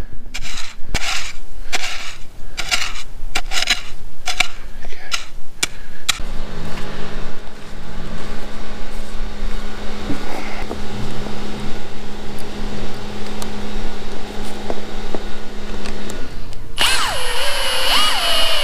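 A flat spade scraping and chopping into soil in quick, regular strokes; near the end a cordless drill whirs in two short runs, rising and falling in pitch, driving a screw through a strap holding PVC conduit to a wooden post.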